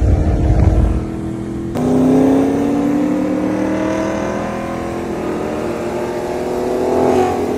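V8 car engine accelerating hard, heard from inside the car. It upshifts about two seconds in, the pitch climbs steadily through the next gear, and it shifts again near the end.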